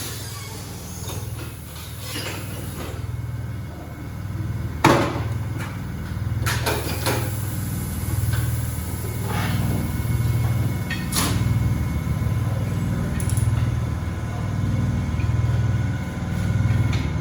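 Tire-shop machinery running with a low hum that pulses about once a second, with a few sharp metallic knocks; the loudest comes about five seconds in.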